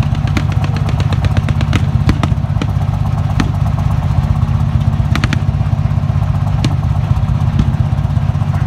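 Armoured vehicle's engine idling steadily with a deep, even hum, with scattered light clicks and clatter over it.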